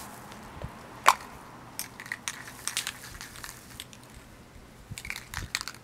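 Aerosol spray-paint can being handled before spraying: one sharp, loud click about a second in, then irregular clicks and rattles, twice.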